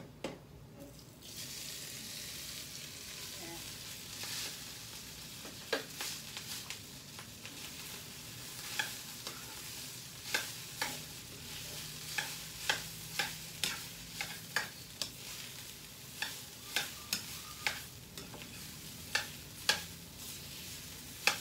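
Rice hits hot oil and garlic in a frying pan and starts sizzling about a second in, then a metal spatula scrapes and clacks against the pan again and again as the fried rice is stirred.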